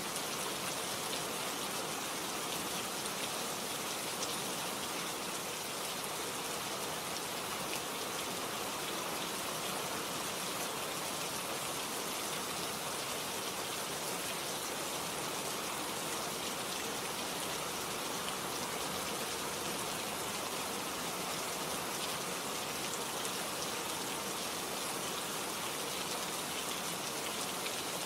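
Steady rain falling and pattering on a surface, an even hiss of many drops with no let-up.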